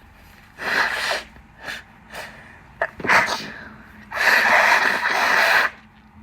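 A woman sneezing: breathy, gasping intakes of breath, then a sudden wet sneeze about three seconds in, followed by a long, loud rush of breath lasting over a second.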